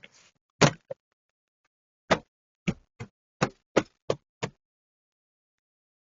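About nine sharp knocks of a hand striking a Toyota RAV4's rear door trim panel, seating its plastic clips into the door; the first knock is the loudest.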